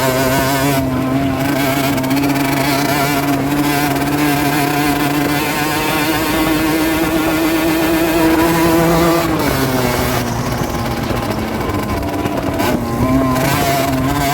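Rieju Drac 50's small two-stroke engine running under steady throttle while riding. The revs dip about two-thirds of the way through and pick back up near the end.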